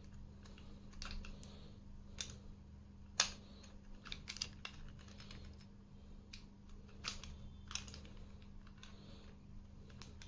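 Scattered small metal clicks and taps from an Allen key and the grip-base CO2 screw of a Beretta M92A1 air pistol being tightened and handled, with one sharper click about three seconds in. A steady low hum lies underneath.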